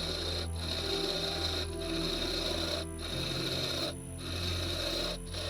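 Wood lathe running while a flat scraper cuts inside a hole in a turned wooden blank. A steady hum sits under a rasping scrape that breaks off briefly about once a second.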